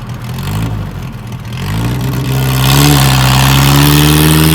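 Car engine revving: the revs climb about two seconds in and are then held high and steady.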